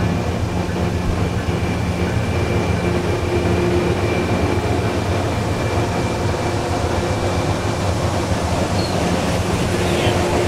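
VIA Rail LRC passenger cars rolling past on the rails: a steady rumble of wheels and running gear with a steady hum underneath.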